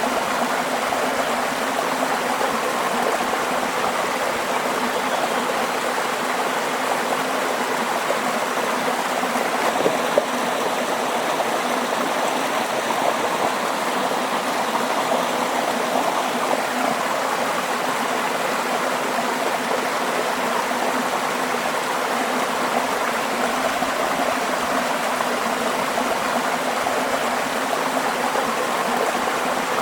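A stream of water flowing steadily, an even, unchanging rush of running water. There is one brief tick about ten seconds in.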